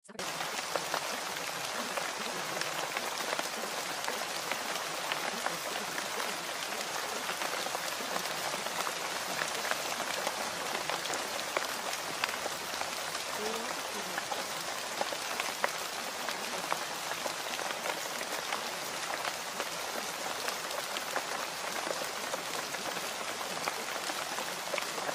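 Steady rain: an even hiss, dotted with many small ticks of drops, that holds unchanged throughout.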